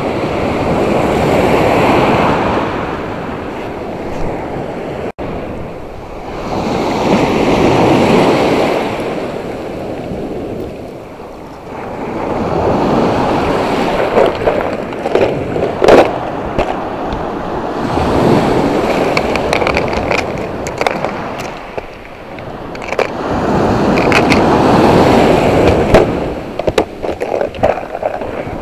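Shore waves breaking and washing up a sandy beach, the surf swelling and ebbing about every six seconds. In the second half, sharp clicks and taps come in short clusters over the wash.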